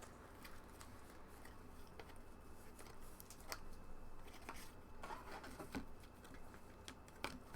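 Faint, scattered clicks and light rustles of trading cards being handled and slid about on a table, over a low room hum.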